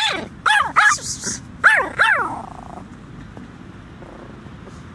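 Small Yorkshire terrier giving five short, high-pitched yapping barks in quick succession during play, then falling quiet for the second half.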